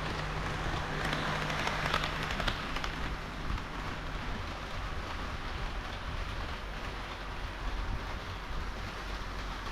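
HO-scale model train of KiHa 40 and KiHa 58 diesel railcars running on layout track: a steady rushing of wheels on rails over a low motor hum, with a short cluster of clicks about one to two and a half seconds in.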